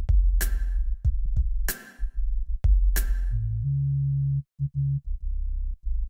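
Background electronic music: a drum-machine beat over a deep bass line, with a sharp hit about every second and a quarter.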